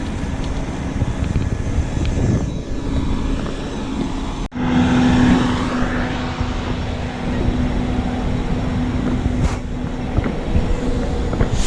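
Motor vehicle noise: a steady engine hum over road rumble. It cuts out abruptly for an instant about four and a half seconds in, then comes back louder for a second or two.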